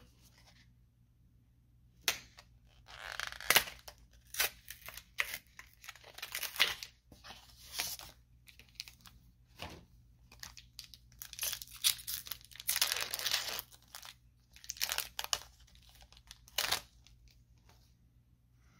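Magic: The Gathering booster pack being torn open: its foil wrapper crinkling and tearing. The sound comes in irregular bursts, starting about two seconds in and stopping shortly before the end.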